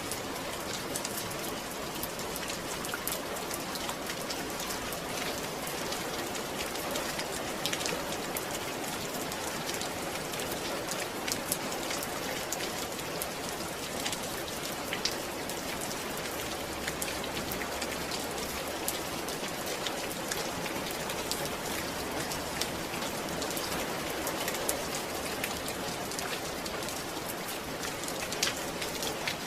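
Steady rain falling on a surface, a dense even patter of drops with fine sharp drop ticks scattered through it.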